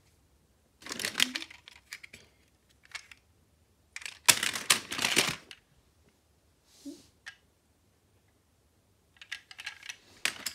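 Toy cars clattering and rattling against each other as a hand rummages through a plastic bin full of them, in three bursts of quick clicks: about a second in, a louder one about four seconds in, and another near the end.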